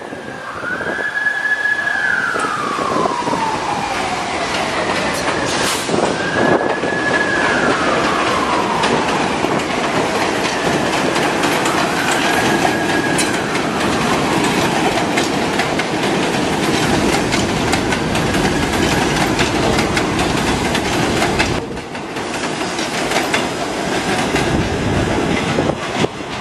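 New York City subway train running by with a steady rumble and wheel clatter. A whine rises, holds high, then glides down, repeating about every six seconds and getting fainter each time.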